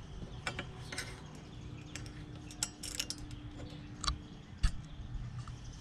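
Light, irregular clicks and taps of hands handling a black metal fender-eliminator plate bracket and its small fittings.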